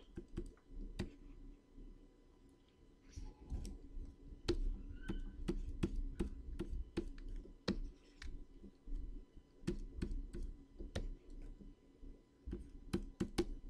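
Irregular light clicks and taps of a computer keyboard and pen tablet during digital painting, a few a second, sparser for a stretch about two seconds in, over a faint low hum.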